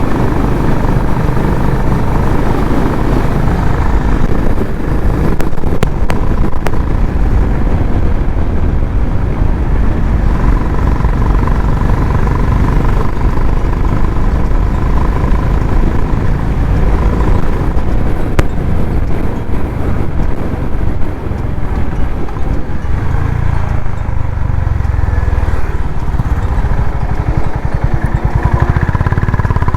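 Honda CB350RS's single-cylinder engine and exhaust running steadily at riding speed, with wind rushing over the microphone.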